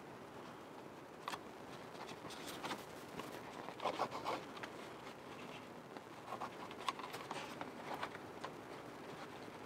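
A thin birch bark strip being pulled and threaded through punched holes around the rim of a birch bark container: faint scratching and rustling, loudest about four seconds in and again around seven seconds.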